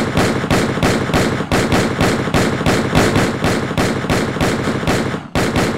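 Rapid, sustained volley of gunfire, several shots a second, breaking off for a moment near the end before carrying on.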